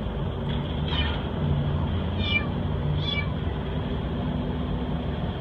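A kitten mewing, several short high-pitched mews in the first three seconds or so, over a steady low hum.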